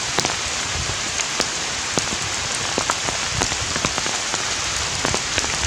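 Steady rain falling, an even hiss with many separate drops ticking sharply on a surface close by.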